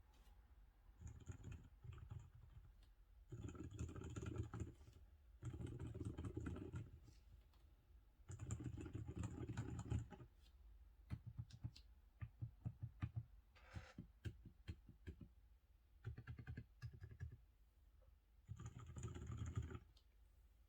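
Typing on an MX-style HHKB mechanical keyboard with lubed Outemu Silent Cream Pro tactile silent switches and TX stabilizers: quiet keystrokes in several fast runs of a second or two each, with slower single key presses in between.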